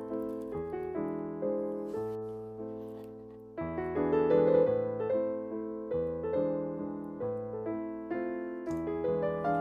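Background piano music: a slow melody of struck notes, about two a second, over held low bass notes, with a brief lull a little past three seconds before a louder chord.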